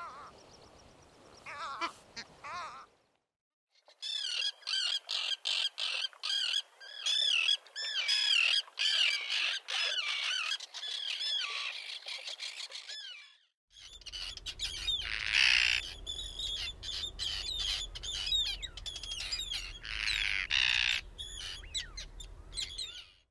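A faint great skua call fades out in the first seconds. After a short gap, common terns call rapidly and harshly, many overlapping calls that rise and fall in pitch, for about nine seconds. After another brief break, Arctic terns call, including two longer rasping calls, over a low rumble.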